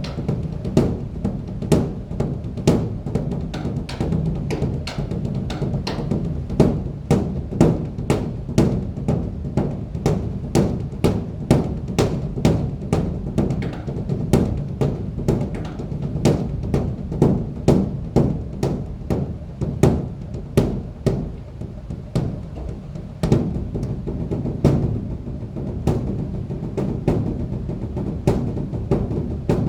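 Large Korean Buddhist temple dharma drum (beopgo) beaten with two sticks in a fast, uneven rhythm of about two strokes a second, some strokes louder than others. This is the drum part of the temple's evening percussion ceremony that leads up to the bell.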